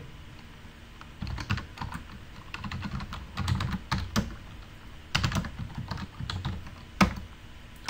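Typing on a computer keyboard: quick, irregular key clicks, with one louder key stroke about seven seconds in.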